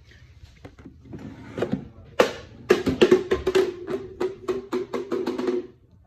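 Short burst of music with a drum beat and a held note, starting about two seconds in and cutting off just before the end.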